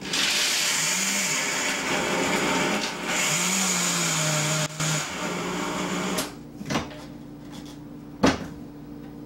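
Countertop blender chopping walnuts, its motor pitch gliding up and down as the speed dial is turned. It dips briefly before 5 seconds, then stops about six seconds in. A sharp knock follows near the end.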